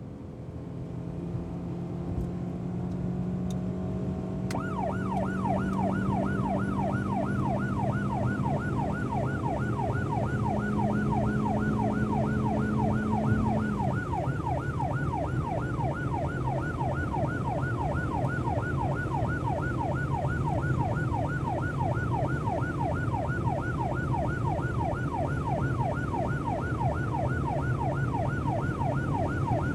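Police car driving with its engine running, the engine note climbing slowly and then dropping about halfway through. A few seconds in, its siren starts and sweeps up and down rapidly, about three times a second.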